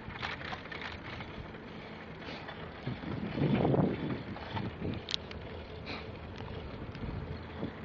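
Wind rushing over the microphone of a moving bicycle, with small clicks and rattles. The wind swells louder for about a second, a little past halfway.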